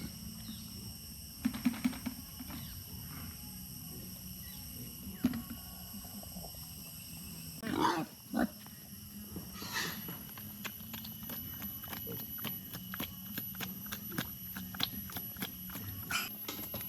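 Pigs grunting, with a louder grunt or squeal about eight seconds in. From about ten seconds on there is a busy patter of quick clicks and knocks.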